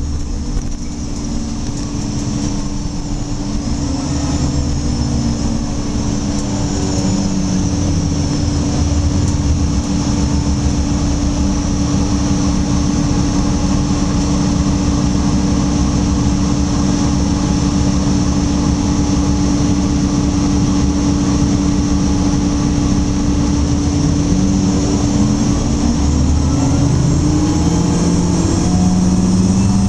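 Interior ride sound of a 2009 Gillig Low Floor transit bus under way: steady diesel drivetrain and road noise with a constant hum. The engine note climbs about seven seconds in and again near the end as the bus pulls away and picks up speed.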